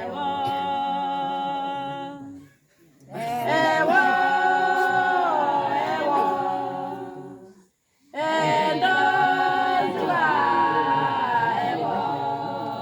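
Women's choir singing a praise song unaccompanied, with long held notes. The singing comes in three phrases, with a short breath pause about two and a half seconds in and another near the eight-second mark.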